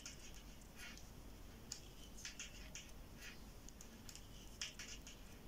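Knitting needles clicking and scraping softly as knit stitches are worked, a run of faint, irregular ticks.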